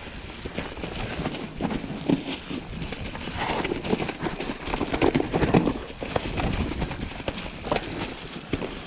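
Mountain bike riding downhill over wet leaf litter and roots: tyres rustling through the leaves, with frequent irregular knocks and rattles of the bike over bumps.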